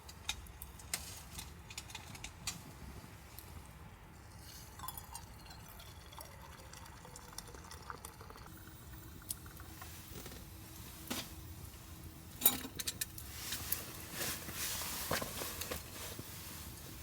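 Liquid being poured and handled among camp cookware, with scattered light clicks and knocks; a louder hissing stretch with clicks comes in the second half.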